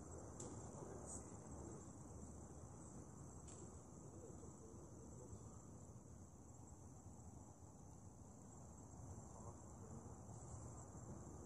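Faint, steady high-pitched insect chorus, with a few faint clicks in the first four seconds over a low background hum.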